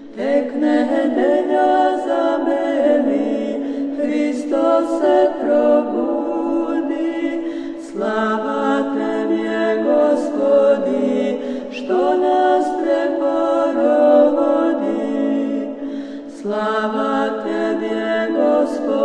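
Orthodox church chant sung a cappella by several voices. Phrases break off briefly and start again about every eight seconds.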